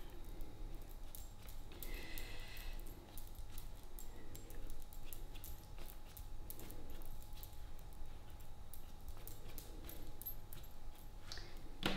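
Light, irregular taps and clicks of a small paintbrush being dabbed onto paper, over a low steady hum.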